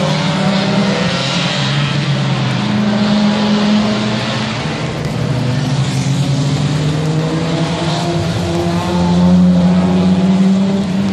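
Several race cars running at speed as they pass on a wet circuit, with engine notes at different pitches overlapping and shifting as each car goes by, over a steady hiss of tyres on the wet track. The engine noise swells loudest near the end.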